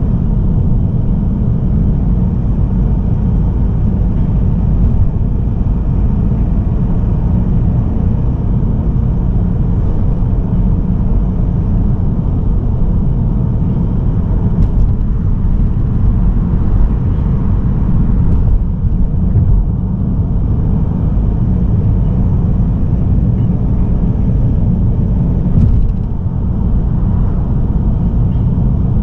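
Steady low rumble of a moving car: the road and engine noise of a Mazda3 sedan with a 1.8 L diesel, picked up by an in-car camera while driving at a steady pace.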